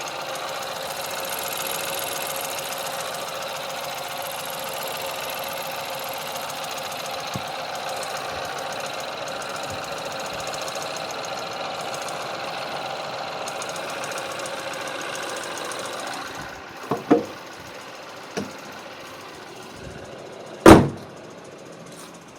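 Ford Focus engine idling steadily with the extraneous idle noise the owner is trying to show. About three-quarters of the way in the engine sound drops away. A few sharp knocks follow, then one loud thump near the end.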